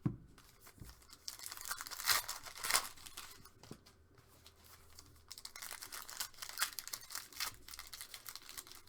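Trading-card packaging being torn open and crinkled by hand, in irregular rustling spells, loudest about two to three seconds in.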